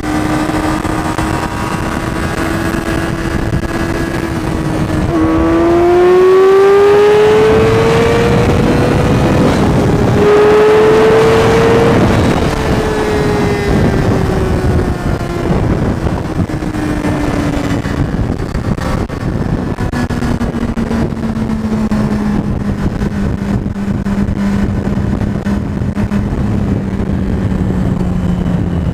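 2007 Yamaha R6 inline-four sport bike running through a Leo Vince aftermarket exhaust, heard with wind rush on the camera. The engine cruises at a steady note, then the throttle opens about five seconds in and the revs climb, with a brief dip about nine seconds in. From about twelve seconds in the note winds down and settles lower and steady for the rest.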